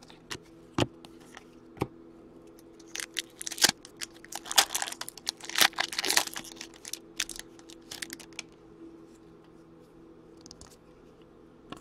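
Foil wrapper of a hockey card pack crinkling and tearing as it is ripped open by hand, densest from about three to seven seconds in. A few sharp clicks of cards being handled come first.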